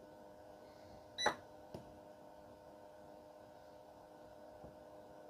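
Capacitor spot welder discharging through copper probes into a 0.2 mm nickel-plated strip on an 18650 cell at power setting 60: one sharp snap about a second in, then a fainter click about half a second later, over a faint steady hum.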